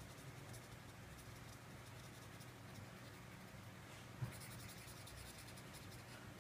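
Colored pencil scratching on paper in quick short shading strokes, faint, with one small tap about four seconds in and the strokes busiest just after it.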